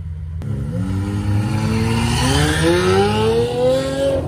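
Lamborghini Aventador SVJ's V12 accelerating hard from a standstill. The revs climb steeply, drop once at an upshift about two seconds in, then climb again as the car pulls away.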